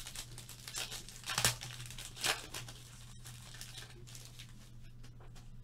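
Baseball trading cards and their foil pack wrapper being handled: a run of crinkling and rustling, with two louder crinkles about a second and a half and two seconds in.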